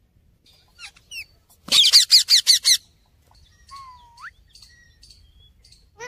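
Indian ringneck parakeets calling: a couple of soft chirps, then a rapid run of about eight shrill, piercing screeches lasting about a second, followed by quieter chirps and a short rising whistle.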